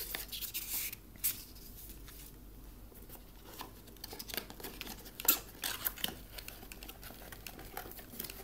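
Cardboard and paper packaging being handled: a rustle as a paper insert slides out of a small cardboard box, then scattered light taps and scrapes of card against card.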